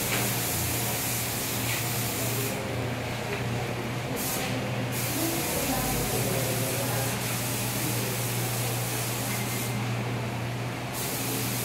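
Hiss of compressed air and paint from a gravity-feed paint spray gun spraying a wall, cutting out twice for a second or two, with a steady low hum underneath.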